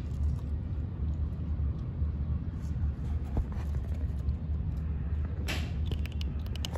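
Steady low outdoor rumble, with a brief rushing noise about five and a half seconds in.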